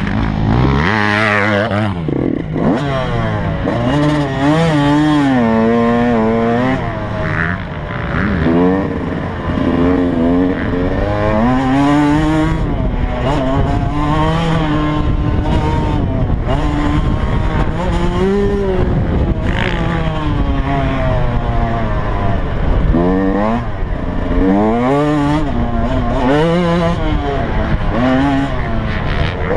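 Yamaha YZ125 two-stroke dirt bike engine under hard riding, its pitch repeatedly climbing as the throttle is opened and dropping as it shifts or backs off, with rushing wind noise over it.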